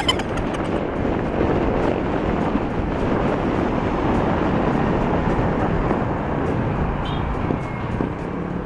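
Wind rushing over a phone microphone on a moving scooter, a steady noise with the ride's road sound underneath, easing slightly near the end.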